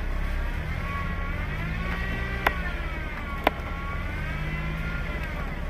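A car's engine revving while reversing on snow, its pitch rising and falling slowly with a whine, as the car struggles for grip while people push it. Two sharp clicks about two and a half and three and a half seconds in.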